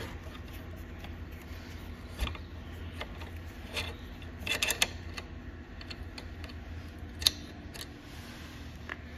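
Hex key working a chainring bolt loose on a Wahoo KICKR Bike crank: a few scattered light metal clicks and taps, the sharpest about seven seconds in, over a steady low hum.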